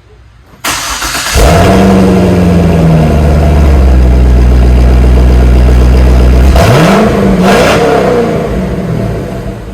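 Corvette LS2 V8 with a Corsa cat-back exhaust starting up: it catches with a flare in revs, settles to a loud steady idle, gets one throttle blip about seven seconds in and drops back to idle.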